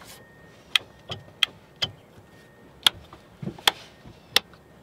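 Boat dash rocker switches being flicked one after another: about eight sharp clicks at uneven spacing.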